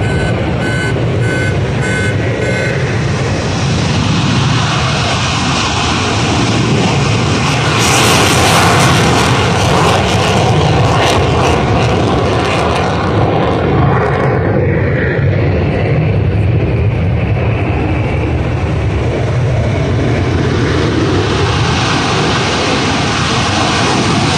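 Lockheed Martin F-35A Lightning II fighter jets taking off at full power, a loud continuous jet engine noise. It turns harsh and crackling for a few seconds about eight seconds in as one jet climbs out, then builds again near the end as the next jet lifts off.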